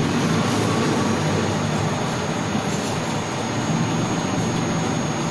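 Steady low rumbling background noise that does not let up, with a thin constant high tone over it.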